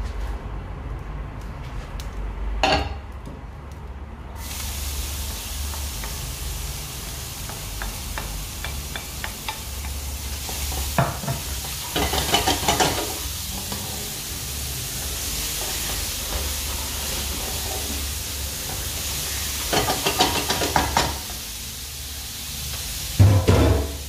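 Food sizzling in a hot pan. The sizzle starts about four seconds in, after a few utensil clinks, and is stirred and scraped with a spoon or spatula twice, around the middle and near the end.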